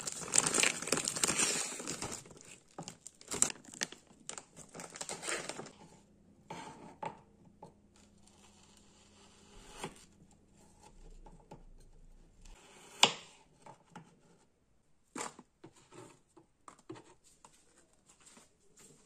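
Plastic bag of frozen fish balls crinkling as it is handled and pulled open for the first several seconds. Then quieter scattered clicks and knocks as the hard, still-frozen fish balls are handled on a cutting board, with one sharp knock about two-thirds of the way through.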